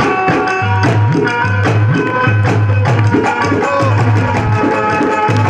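Instrumental break of a Haryanvi ragni: a dholak beats a steady folk groove of repeating heavy bass strokes, with a keyboard holding long melody notes over it.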